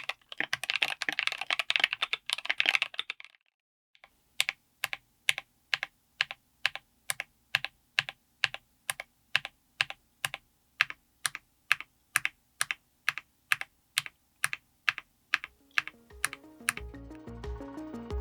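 Mechanical keyboard fitted with Gateron Smoothie Banana full-POM tactile switches: fast typing for about three seconds, a short pause, then single keystrokes at an even pace of about three a second. Music fades in near the end.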